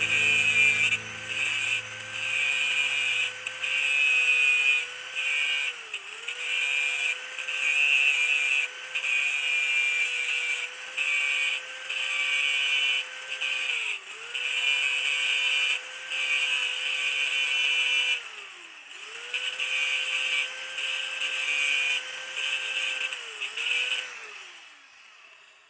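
A small high-speed rotary power tool running with a steady whine that sags in pitch and recovers about four times as it is loaded, with choppy grinding hiss on and off, then winds down near the end.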